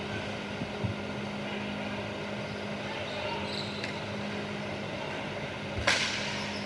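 Steady background hum of the rink, with a single sharp impact near the end from ball hockey play, a stick or ball strike.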